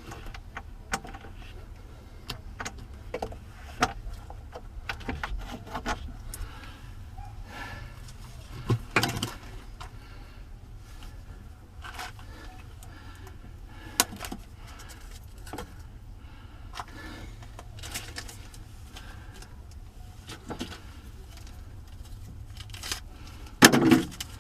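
Intermittent metallic clinks, scrapes and knocks of hand tools and hardware being handled, with a heavier thump about nine seconds in and a louder one near the end.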